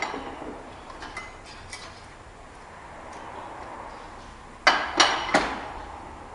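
Rebar stirrup-bending machine making a fold in a set of steel bars: a faint mechanical hum with light ticks, then three sharp metallic clanks in quick succession, about a third of a second apart, near the end.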